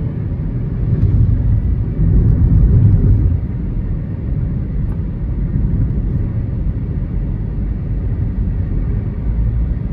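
Low, steady rumble of a car on the move: road and engine noise, swelling louder for about two seconds a second in.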